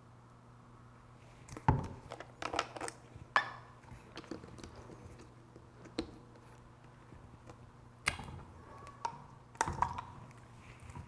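Irregular sharp clinks and knocks of glassware and ice being handled while a drink is prepared, a few with a brief ringing, over a low steady hum.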